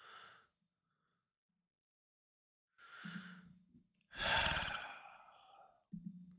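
A man's breathy sighs and exhales close to the microphone. There is a short breath at the start and a hummed "mm" about three seconds in. Then comes the loudest sound, a long heavy sigh, followed by another short "mm" near the end.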